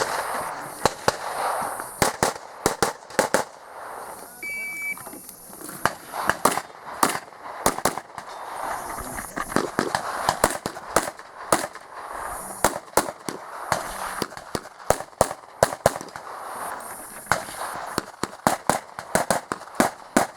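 Handgun shots fired in rapid strings during an IPSC course of fire. A short electronic shot-timer beep sounds once, about four and a half seconds in.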